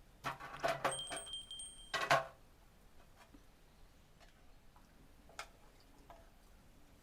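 A short burst of clattering knocks and clinks lasting about two seconds, with a thin, steady high ringing tone held for about a second in the middle. A few faint single ticks follow.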